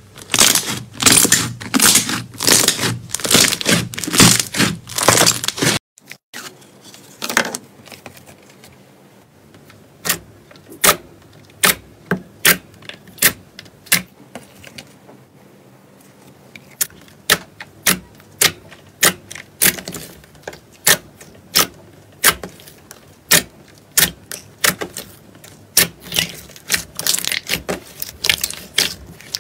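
Hands kneading and pressing slime: a dense run of crackling for about six seconds, then, after a sudden cut, separate sharp clicking pops one or two a second as clear jelly slime full of trapped air is squeezed, thickening into crackling again near the end.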